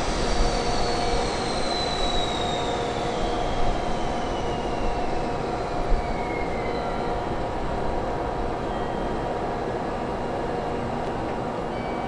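Freight train passing at speed: a steady rush of wheels on rail, with a high whine falling slowly in pitch over the first seven seconds and a single sharp knock about six seconds in.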